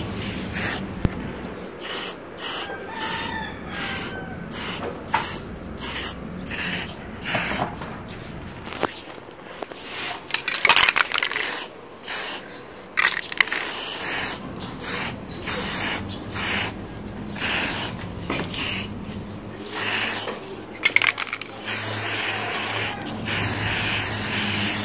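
Hissing spray in many short bursts with brief gaps between them, and one longer spray near the middle.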